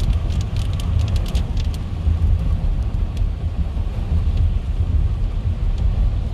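Steady low rumble of a car driving, heard from inside the cabin, with scattered sharp ticks of drops striking the car. The ticks are thick in the first two seconds, then thin out.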